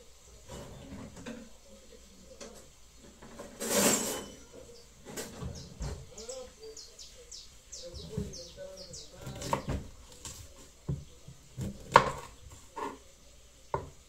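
Kitchen utensils, pots and dishes being handled, making scattered knocks and clatter at an irregular pace, with a brief rush of noise about four seconds in and a sharp knock near the end.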